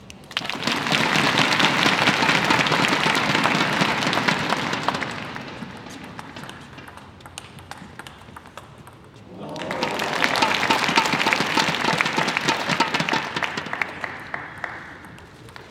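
Arena crowd applauding at a table tennis match in two rounds, one at the start and another about nine seconds in, each fading away over a few seconds.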